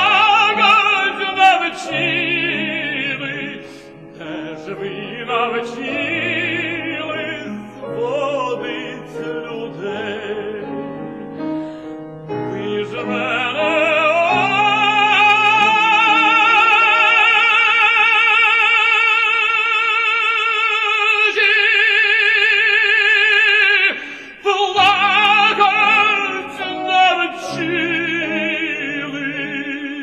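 Operatic tenor voice singing with a wide vibrato over piano accompaniment. After a rising phrase he holds one long high note for about ten seconds, breaks off briefly, then sings on as the phrase dies away near the end.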